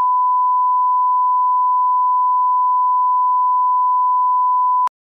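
Broadcast test signal: a steady 1 kHz reference tone played over colour bars, cutting off suddenly with a click near the end.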